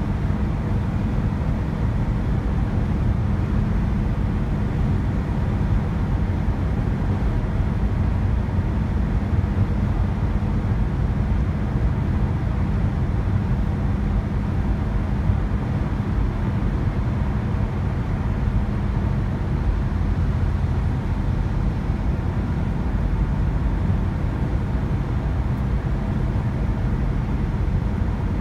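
Road and engine noise inside a car's cabin while driving at highway speed: a steady low rumble with a constant hum underneath.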